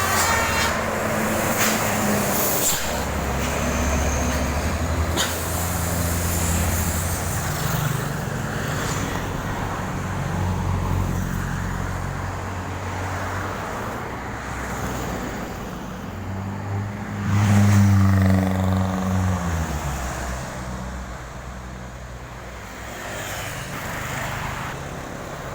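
Highway traffic with heavy diesel buses and trucks running past close by. The loudest pass comes about two-thirds of the way in, its engine note falling in pitch as it goes by.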